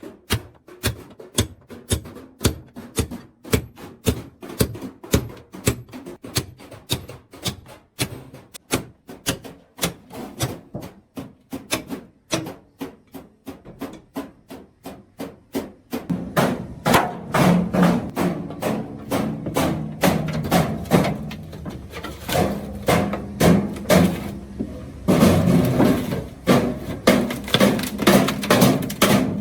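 Hammers beating steel from an oil drum, fast regular blows about three a second. A little past halfway the hammering gets louder and denser, with the metal ringing.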